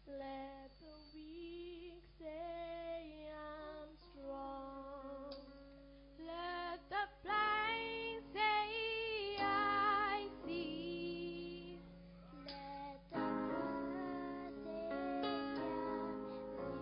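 A girls' vocal group singing a sacred song through handheld stage microphones, over a steady instrumental backing.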